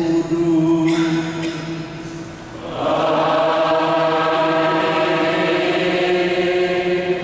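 Priests singing a liturgical chant in long held notes. About two and a half seconds in the singing dips briefly, then comes back fuller and louder.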